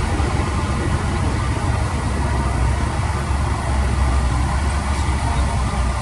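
Diesel engine of a piece of heavy earthmoving equipment, running steadily.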